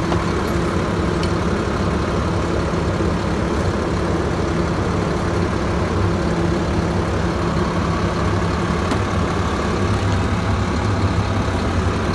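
International MaxxForce 13 inline-six diesel engine idling steadily, running after its high-pressure fuel pump was replaced and the fuel system primed.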